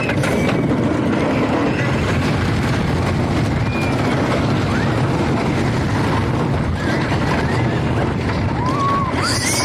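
Wooden roller coaster train running down its first drop and along the track: a continuous rumble and rush of wind over the microphone, with riders' short high screams rising above it several times, a longer one near the end.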